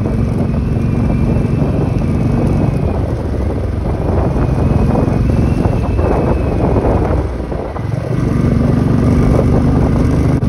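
Motorcycle engine running steadily at road speed, with wind rushing over the microphone. The engine note eases briefly about eight seconds in, then picks back up.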